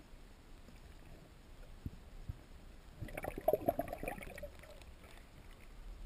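Muffled underwater sound heard through a camera housing: two dull knocks, then about a second and a half of bubbling and crackling from air bubbles in the water.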